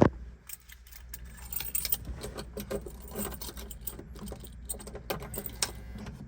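A bunch of car keys jangling and clinking as they are handled, a quick run of irregular metallic clicks.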